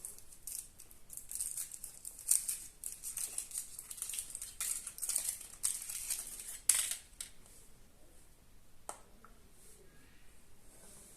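Foil wrapper of a Kinder Surprise egg crinkling as it is unwrapped, in irregular bursts for about seven seconds, followed by a single sharp click.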